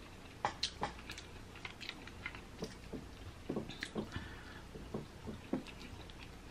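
Close-miked chewing of snow crab meat, with scattered small clicks and crackles as crab leg shell and meat are picked apart by hand.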